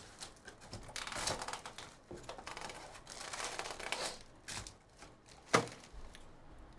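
A cardboard hobby box of trading cards being torn open and its foil card packs pulled out, with crinkling and tearing of packaging in two stretches. A single sharp knock about five and a half seconds in is the loudest sound.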